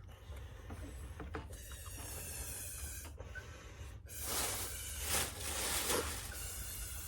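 A breathy hissing rush that swells for about two seconds in the latter half, over a low steady hum.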